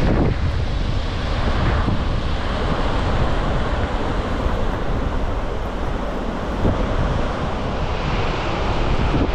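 Large waterfall rushing, a steady loud noise, with wind buffeting the microphone.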